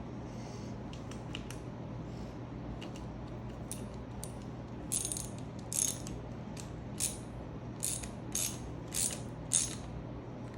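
Ratchet wrench worked in short strokes on a bolt, a quick burst of clicks on each back-swing, about seven strokes in the second half after a few lighter clicks. A low steady hum runs underneath.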